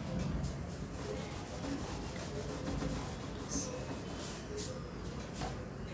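Cloth duster rubbing over a whiteboard, wiping off marker writing.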